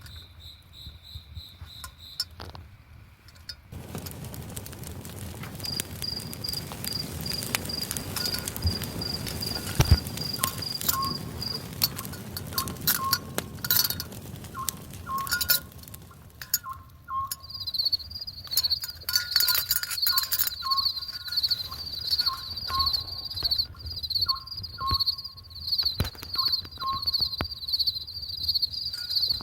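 Crickets chirping in a high, pulsing trill, over irregular crackling and sharp clicks. The trill drops out for a few seconds in the middle, then carries on steadily.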